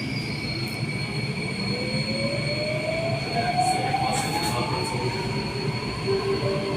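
Inside a C951 Downtown Line metro carriage while it is moving: a steady rumble of wheels on rail with a thin high whine. Partway through, the motor whine climbs steadily in pitch as the train picks up speed.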